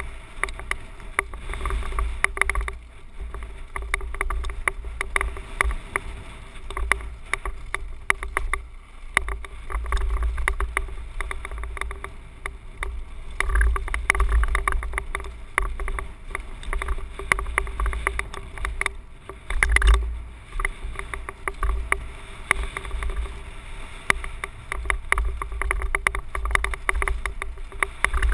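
Mountain bike rattling down a rough dirt trail, heard through a helmet-mounted microphone with wind buffeting it: a constant low rumble under dense, uneven clattering clicks.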